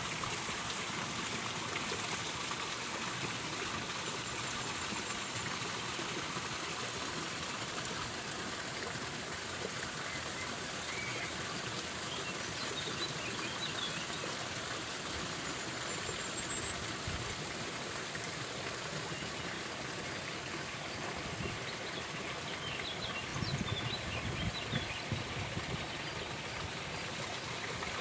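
Steady running water from a small garden waterfall, with a few faint bird chirps about a third of the way in and again near the end, and some low bumps near the end.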